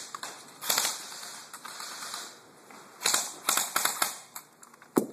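Airsoft rifles firing short bursts of rapid clicking shots, about a second in and again around three seconds in, with a few single clicks between.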